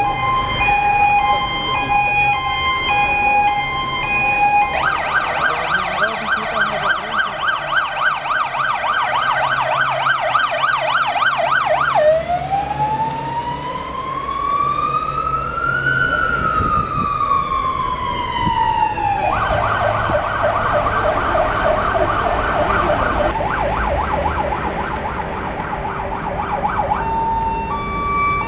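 Fire engine siren on an emergency run, switching modes: a two-tone hi-lo at first, then a fast yelp from about five seconds in, a single slow wail rising and falling in the middle, the fast yelp again, and the hi-lo two-tone back near the end.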